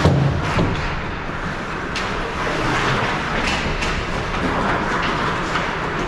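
Ice hockey play in an arena: skate blades scraping and carving the ice, with sharp clacks of sticks and puck. A heavy thump at the start, then a few single clacks.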